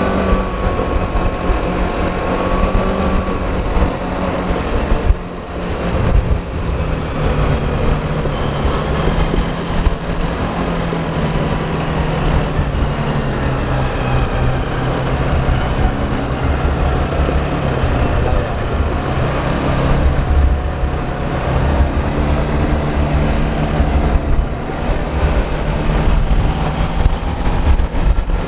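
Quad bike engine running steadily while riding, with heavy wind rumble on the microphone.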